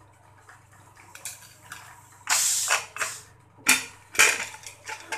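A pressure cooker lid being twisted open and lifted off the pot. A few light clicks, then a brief harsh rasp about two seconds in, followed by two sharp metal clanks.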